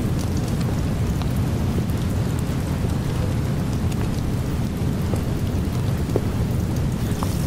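Steady rain-and-thunder ambience: an even wash of rain with a continuous low rumble and scattered drop ticks, unchanging throughout.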